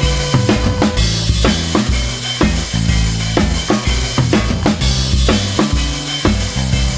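Background music: a rock-style drum beat with kick and snare over a bass line.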